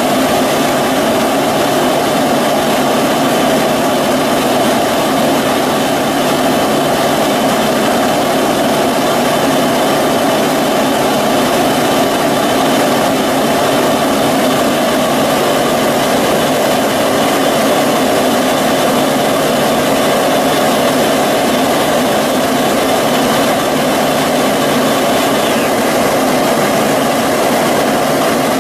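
Heavy machinery running steadily with a constant hum. A faint high whine in it drops in pitch near the end.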